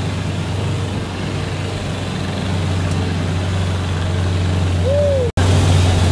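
Engine of an open-bed cargo vehicle running steadily with a low drone, heard from riders sitting in its wooden cargo box. The sound cuts out for an instant about five seconds in.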